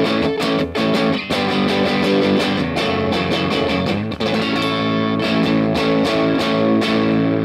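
Fender '50s Road Worn Stratocaster on its neck pickup, played through a Bearfoot FX Silver Bee overdrive with the drive fully up into a Vox TB18 amp: overdriven strummed rhythm chords. A chord is left to ring about four seconds in, and another rings out near the end.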